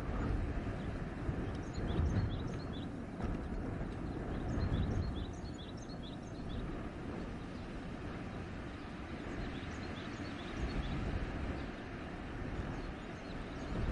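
Wind gusting through a forest, a rushing noise that swells and eases. Small birds give many short high chirps through the first half.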